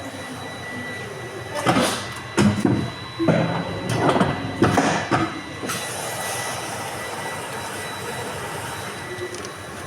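A paper cutting machine running with a steady hum and whine. Between about two and six seconds in comes a run of loud, irregular knocks and clanks.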